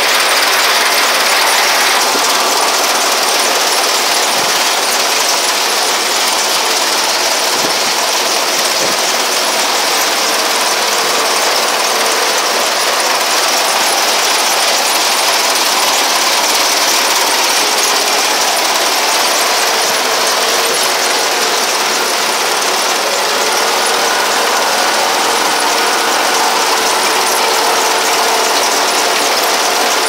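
Tractor-drawn 4U-160 vibrating potato harvester at work: a steady mechanical rattle from its shaking rod-grid sieve and drive, with soil and potatoes tumbling over the grid and the tractor engine running.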